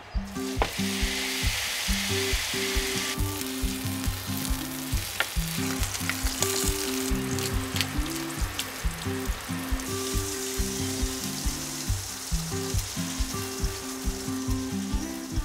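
Tomahawk steak searing in oil on a hot electric griddle plate: a continuous sizzle that flares up about half a second in as the meat goes down. Background music with a steady beat plays underneath.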